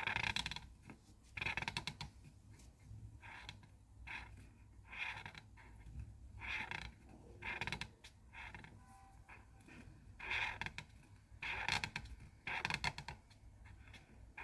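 Colouring tool rubbed back and forth on paper to fill in a drawing: a string of short scratchy strokes at uneven intervals, the loudest at the very start and in the last few seconds.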